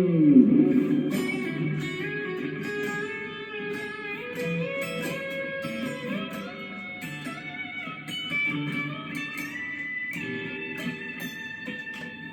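Electric guitar, a Strat-style three-single-coil Gear4Music LA Select, played in single-note lead lines with string bends. It opens with a falling pitch slide.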